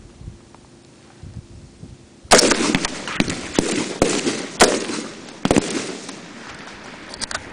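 M16-type rifle fire on a range: from about two seconds in, a run of loud, sharp single shots at uneven spacing, each with an echoing tail, then a few fainter shots near the end.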